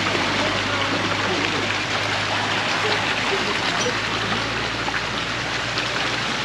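Water gushing steadily from pipe spouts and splashing into a stone pool, an even rushing sound. A faint low hum runs underneath.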